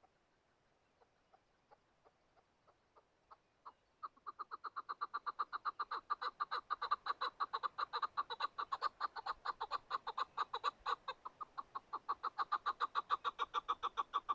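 Chukar partridge calling: a few spaced clucking notes that come faster and faster, then from about four seconds in a long, even run of rapid clucks, about six a second.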